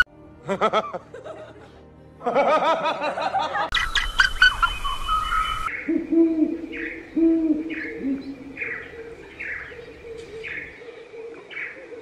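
Owl calling: a few low hoots, then a steady run of short, falling cries about one and a half a second, after several seconds of wavering, pitched bird calls.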